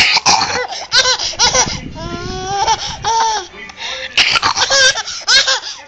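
A baby laughing in repeated short bursts, high pitched squeals alternating with breathy gasps.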